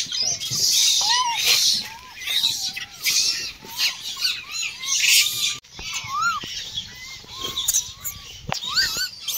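A run of short, arching chirps and squeaks from animals, several a second, over bursts of high hiss. The sound breaks off sharply for a moment about halfway through.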